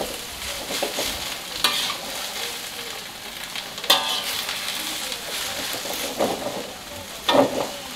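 Kangkung (water spinach) stir-frying in a metal wok: a steady sizzle, with a metal spatula scraping and knocking against the pan a few times, loudest near the end.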